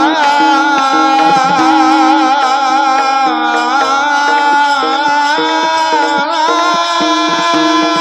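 A male devotional singer holds one long high note with a wavering vibrato in a Marathi kirtan bhajan. Under it run a steady instrumental drone and hand-drum beats.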